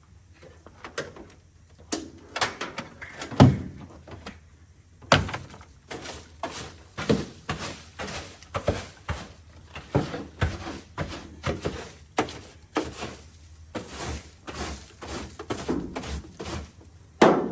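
Irregular knocks, clunks and rustling of trash and debris being handled and pulled out of an old car's interior, with a heavier thunk about three seconds in and another near the end.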